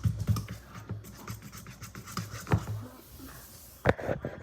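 A fork beating cake batter in a mixing bowl: quick, rhythmic taps and scrapes for about the first second, then slower, scattered clicks against the bowl, with one sharp knock near the end.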